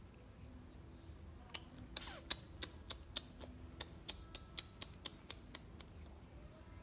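A quick run of small, sharp clicks and taps, a dozen or more over about four seconds, from a baby monkey's cloth shirt being handled and pulled on.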